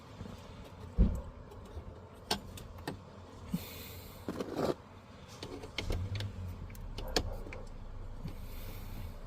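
Hand work on a Chevy Express van's shifter cable and its clips: scattered clicks, taps and small rattles, with a sharp knock about a second in. A low rumble joins from about six seconds in.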